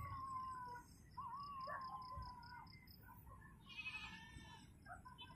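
Faint animal calls: two drawn-out, wavering calls in the first two seconds, over a rapid, even high chirping, with a short burst of bird-like chirps about four seconds in.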